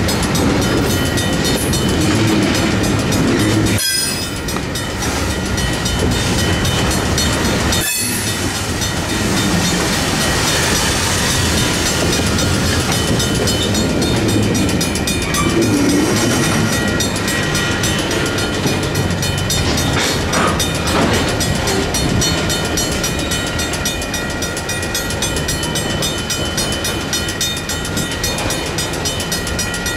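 A freight train rolling slowly through a railroad grade crossing, its cars rumbling and clacking over the rails, with the crossing bells ringing steadily.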